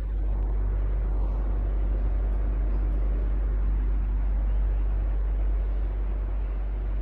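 Electric fan running steadily: an even whooshing rush of air over a strong, constant low hum from the motor.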